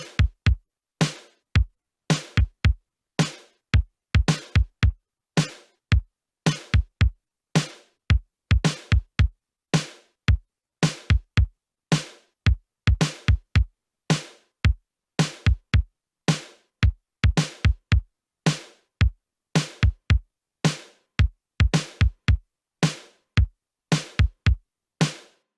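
Synthwave drum machine beat played from vintage drum machine samples (LinnDrum, DrumTraks, Roland TR-707 and TR-808): a repeating pattern of deep kicks that drop in pitch and crisp snare-type hits. The hits are dry and separate, with silence between them.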